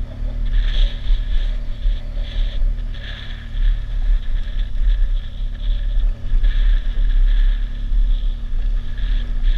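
BMW R1200 GS boxer-twin engine pulling at a steady low speed up a gravel road, with wind noise on the microphone.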